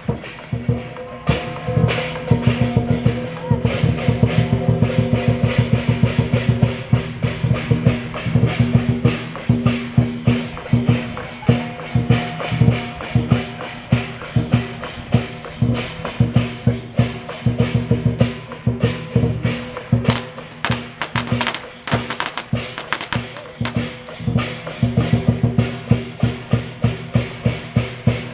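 Chinese lion-dance percussion: a big drum beaten in a fast, steady rhythm with crashing cymbals, accompanying a lion and dragon dance.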